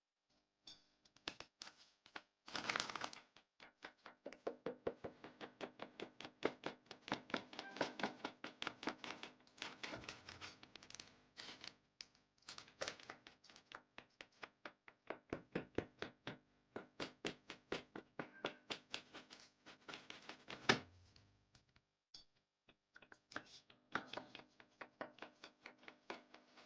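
Knife chopping on a cutting board: a long run of quick, even knocks, about three a second, that stops briefly a little past the two-thirds mark and then resumes.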